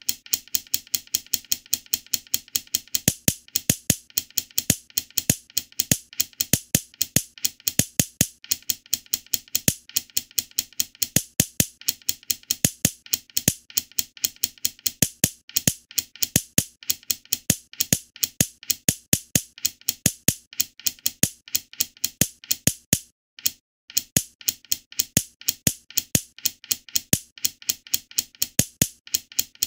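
Shogi website's piece-placement sound effect, a sharp wooden click played once for each move as a game replays rapidly, about four or five clicks a second with one brief pause.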